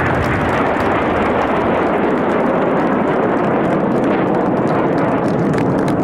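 Red Arrows BAE Hawk T1 jets' Rolls-Royce Adour turbofans: loud, steady jet noise with no break.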